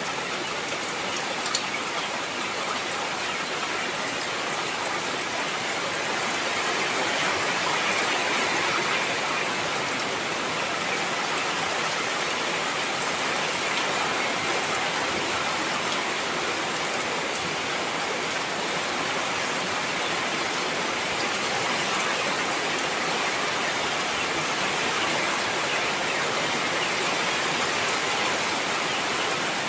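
Heavy rain falling steadily, an even dense hiss of drops, with one sharp tick about one and a half seconds in.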